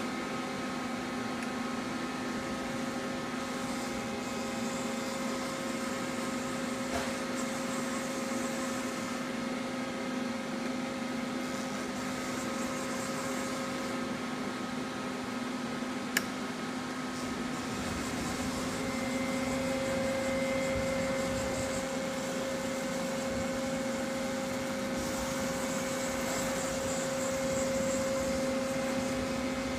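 Hwacheon Hi Eco 31A CNC lathe powered up, giving a steady machine hum made of several steady tones. A single sharp click comes about sixteen seconds in. From about nineteen seconds the hum grows a little louder, with a higher whine added.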